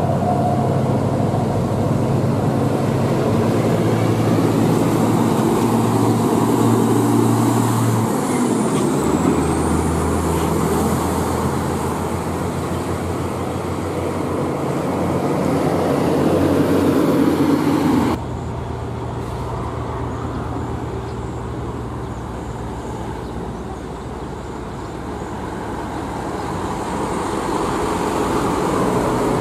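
Six-cylinder diesel engine of a Hino FM260Ti LPG tanker truck pulling away under load, its engine note shifting about eight seconds in. About two-thirds of the way through the sound cuts abruptly to quieter road traffic, and another truck's diesel engine grows louder as it approaches near the end.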